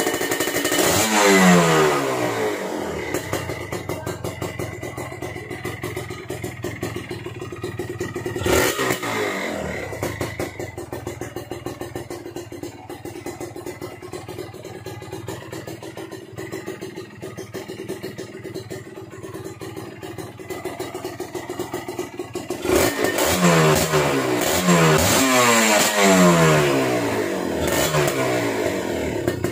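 Kawasaki Ninja RR two-stroke single running through its stock, un-debaffled exhaust: sharp throttle blips at the start, one short blip about a third of the way in, and a quick run of blips near the end, each dropping back to a steady idle.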